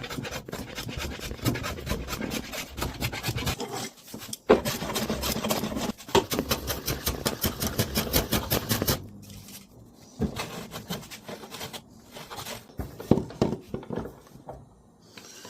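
Rapid, even rubbing strokes of a hand tool on wood, cleaning up dried glue on a freshly glued box. After about nine seconds they give way to quieter, scattered scrapes and taps.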